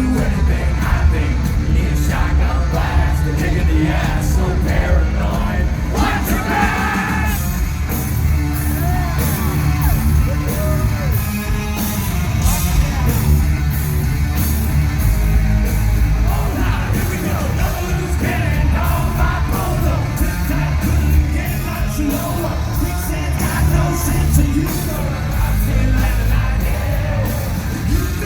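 Live rock band playing loud, with heavy bass, drums and a singer's yelled vocals, heard from among the audience.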